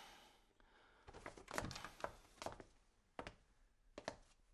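A cluster of knocks and scuffs, then a man's shoe footsteps on a hard floor, about one step a second.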